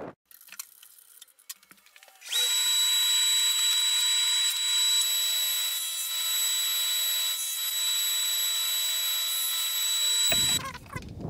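Table saw running with a steady high whine while a thin plywood strip is fed through it crosswise with the miter gauge. The saw starts about two seconds in and stops sharply near the end.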